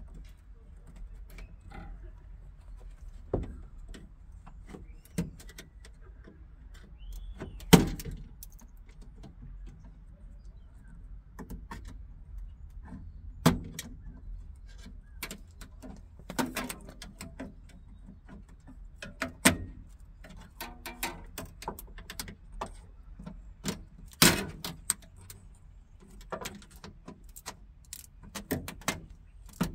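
Irregular clicks, knocks and light scraping as an old frame is pried and pulled off the edge of a Fiat 126 door's side window glass, the loudest knock about eight seconds in.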